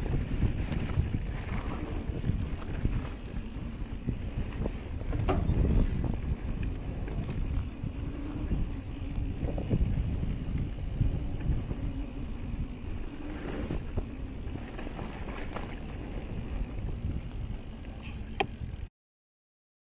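Ransom mountain bike running fast along a dirt trail: tyre rumble and wind buffeting the camera microphone, with a few sharp knocks and rattles from the bike over bumps. The sound cuts out abruptly near the end.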